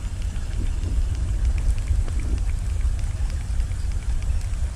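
Steady low rumble of wind buffeting the camera microphone, with faint scattered ticks above it.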